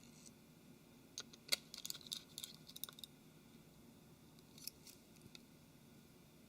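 Faint, sharp little clicks and taps of small tools and smartphone parts being handled during reassembly. A quick cluster comes about a second in and lasts about two seconds, then a few more follow near five seconds.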